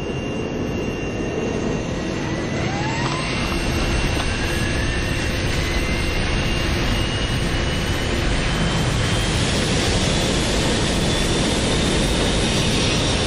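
Airliner jet engines spooling up for takeoff, heard from inside the cabin: a steady roar with whining tones that rise in pitch and grow louder.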